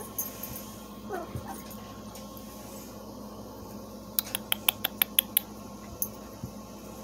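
Three-week-old puppy giving a short, high, falling whimper about a second in. A quick run of about eight sharp clicks follows a little past the middle.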